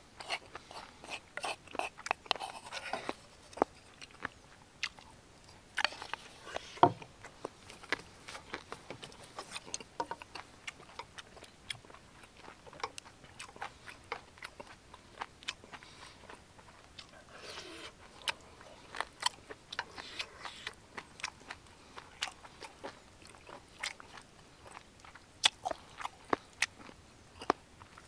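Close-miked chewing and biting of braised kimchi with pork belly: an irregular run of many short, sharp wet mouth clicks.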